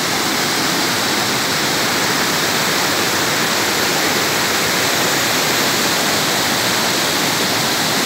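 Loud, steady rushing of a waterfall: a river pouring white water over a series of rock ledges and cascades.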